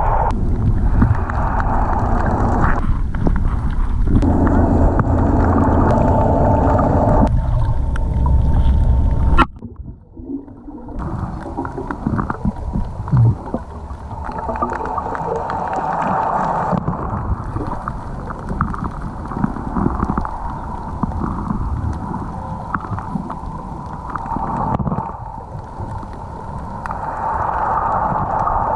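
Water noise with gurgling, heavy and rumbling for the first third, then cutting abruptly to a quieter, choppier bubbling.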